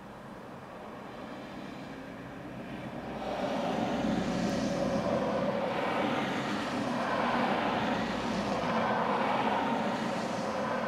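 Vehicle noise from passing road traffic, swelling about three seconds in and staying loud to the end.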